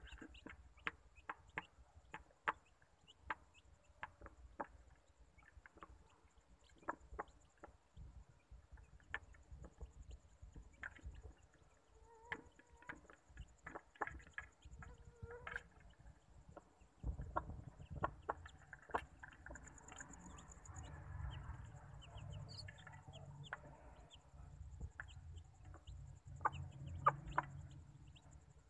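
Chicks pecking feed off a plate, their beaks striking it in quick, irregular clicks, with a hen clucking now and then. A low rumble joins about halfway through.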